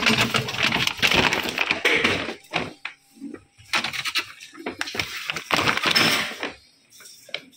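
Plastic bags of dry cat food crinkling and rustling as they are pulled out of a cabinet and dropped onto a pile on the floor, in a run of irregular crackling bursts that die down near the end.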